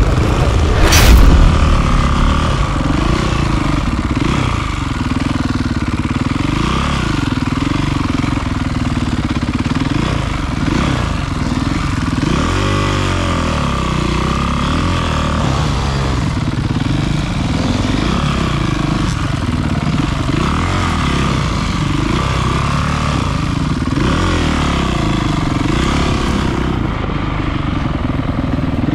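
Honda CRF250 dirt bike's four-stroke single-cylinder engine being ridden, its pitch rising and falling steadily with the throttle. About a second in there is a brief, louder burst.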